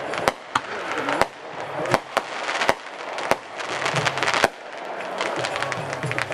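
Fireworks going off: a quick run of sharp bangs from bursting shells, a dozen or so loud ones, over a continuous crackle.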